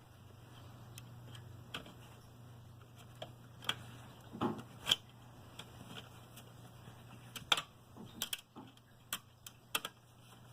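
Scattered light metallic clicks and taps, irregular and about nine in all, from a screwdriver, screws and a power supply being worked in a metal 1U server case. One slightly heavier knock comes about four and a half seconds in, over a faint steady low hum.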